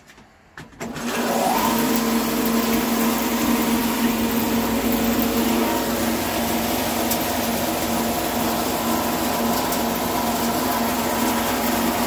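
Sawdust hammer mill switched on about a second in, spinning up quickly and then running steadily at speed with a loud, even whirr over a steady hum.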